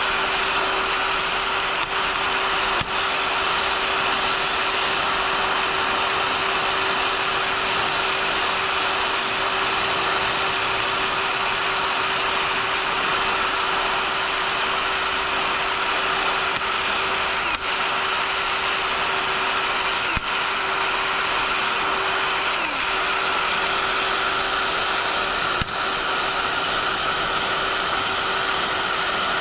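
Cordless drill spinning a wire wheel brush against a Briggs & Stratton cylinder head, scrubbing the head clean. It runs steadily with a few momentary dips.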